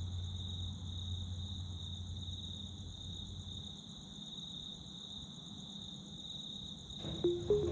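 Steady, high-pitched insect chirring with a fine pulsing texture, over a low rumble that fades out about halfway. Music with plucked notes comes in near the end.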